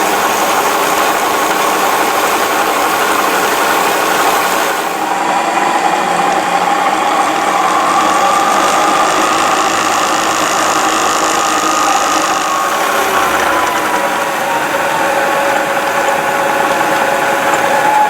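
XYZ Pro 3000 CNC turret mill running, a steady mechanical hum with a whine that rises about five seconds in, holds, then falls again later on, as the spindle speed changes.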